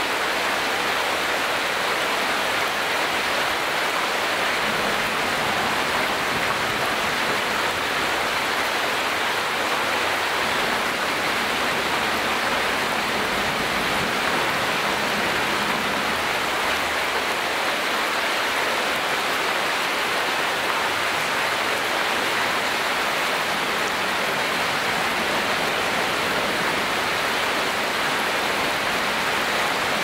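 Shallow stream water flowing fast over a stony bed, a steady rushing hiss with little low rumble.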